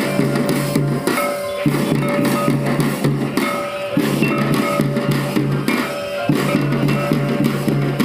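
Adivasi folk drum ensemble playing dance music: double-headed barrel drums and a large kettle drum beaten in a steady, driving rhythm, with a few held pitched notes over the drums.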